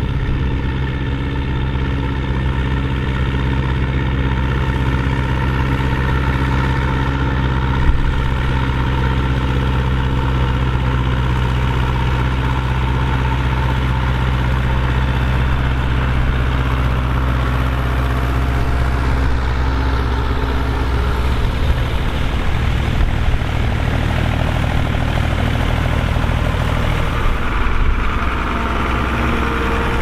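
Diesel tractor engines running steadily under load while pulling ploughs through the soil, the nearest a Zetor tractor.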